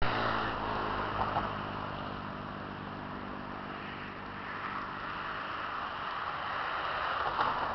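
A motor vehicle's engine going by, fading out over the first couple of seconds, over a steady outdoor wash of noise from distant traffic and wind.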